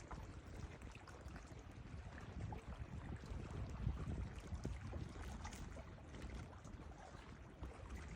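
Atlantic Ocean water splashing and washing, with a low rumble of wind on the microphone.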